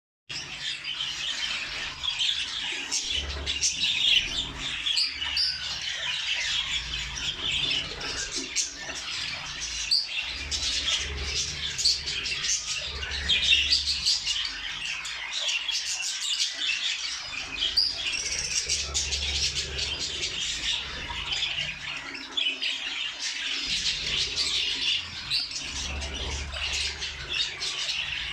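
A flock of budgerigars and zebra finches chattering and chirping together without a break, many short calls overlapping.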